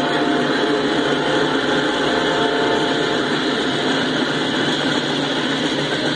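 Freight cars rolling past: a steady, loud rumble of steel wheels on the rails.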